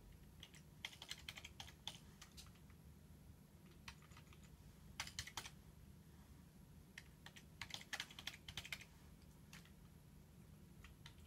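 Faint typing on a computer keyboard: several short runs of key clicks with pauses between them, over a low steady hum.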